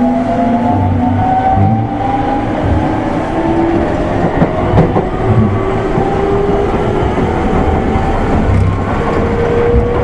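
205-series electric train running: the motors whine in several tones slowly rising in pitch as it gathers speed, over steady wheel rumble and regular rail-joint clatter. A new, lower tone enters near the end.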